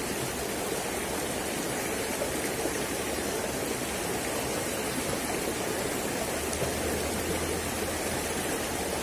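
Shallow river water running and rippling over rocks, a steady rush of water.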